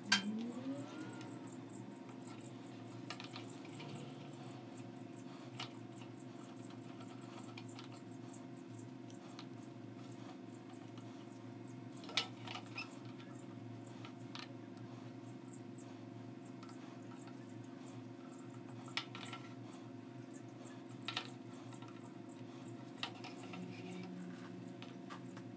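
Small handling noises, light clicks, ticks and scratches, as a gloved hand handles and works on a small plastic model car body, over a steady low hum; one sharper click about halfway through.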